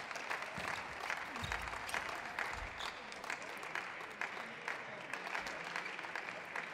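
Arena crowd applauding between points, many hands clapping at a steady level.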